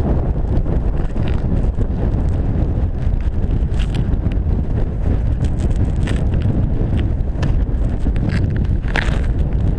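Blizzard wind buffeting the microphone: a loud, steady low rumble with short crackles scattered through it.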